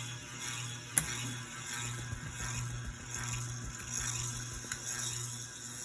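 Hampton Bay San Marino ceiling fan running in reverse with a steady low motor hum, and one sharp click about a second in. The owner blames a bad capacitor for the fan's weak speeds.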